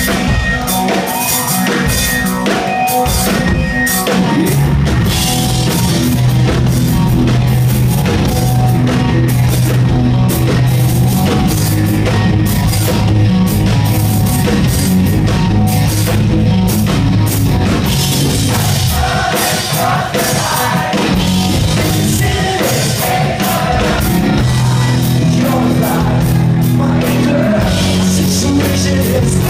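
A live rock band playing loud electric guitars over a driving drum kit beat.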